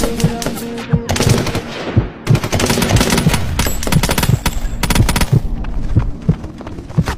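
Gunfire: strings of rapid gunshots fired in quick volleys with short breaks between them, over about six seconds.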